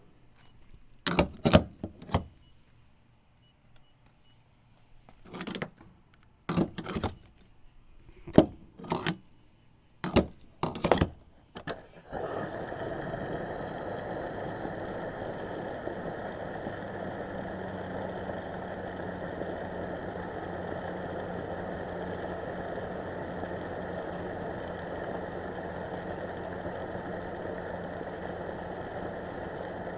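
Refuelling a car at a gas pump: a run of sharp clicks and knocks from the fuel cap being removed and the pump nozzle being handled and inserted into the filler neck. About twelve seconds in, fuel starts flowing into the tank with a steady rushing sound over a low steady hum.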